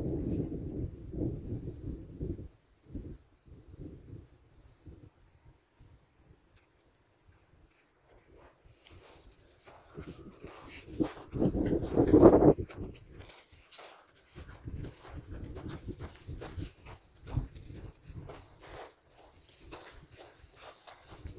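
Insects chirring in a steady, high-pitched drone over dry farmland, with footsteps on dry, stubbly soil. There is a loud low burst about twelve seconds in.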